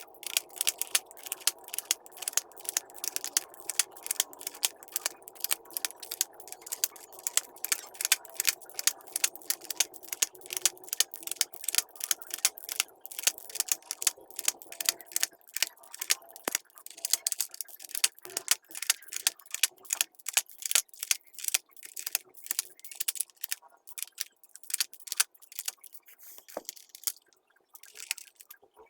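Rapid plastic clicking and clatter from the Logitech PS/2 keyboard's keycaps and parts being handled, several clicks a second. A faint steady hum runs underneath for about the first half.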